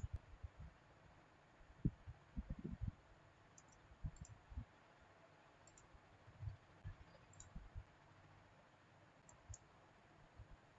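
Quiet, irregular clicking of a computer mouse: soft low knocks with a few faint sharp ticks, a second or two apart, the loudest about two seconds in.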